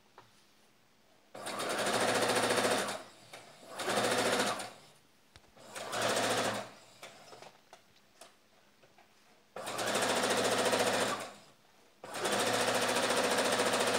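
Brother XR3140 computerized sewing machine stitching in five short runs, stopping and restarting between them as the piping is fed along the neckline, the last run being the longest.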